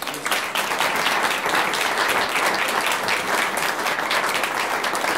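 Audience applauding: a roomful of guests clapping, starting suddenly and holding steady.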